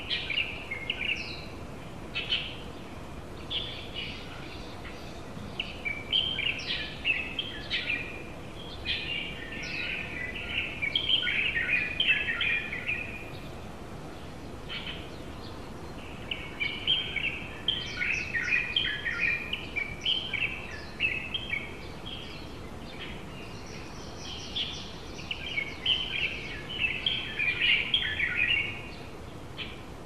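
Japanese white-eyes twittering: bouts of rapid, high chirps a few seconds long, with quieter pauses between them, over a steady faint background hiss.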